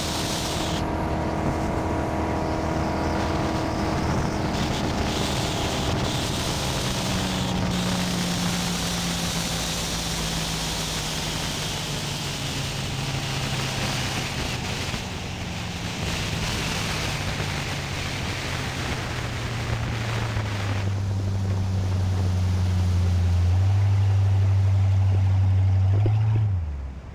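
Correct Craft inboard motorboat under way: its engine runs steadily under a rush of water and wind. The engine gets louder in two steps near the end, then falls in pitch and drops away sharply just before the end as the throttle comes off.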